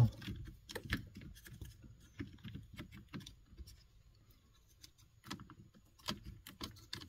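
Faint handling noise of plastic wiring connectors and harness behind a steering column, with scattered small clicks and rustles and a few sharper clicks, about a second in and again near the end.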